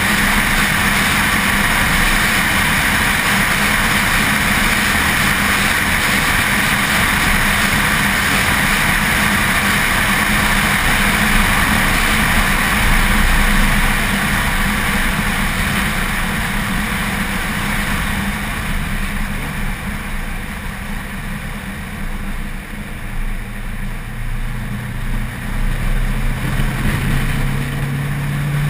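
Car running at track speed: a steady engine note under a dense rush of wind and tyre noise. About two-thirds of the way through the sound eases off, and near the end a lower engine note rises slowly.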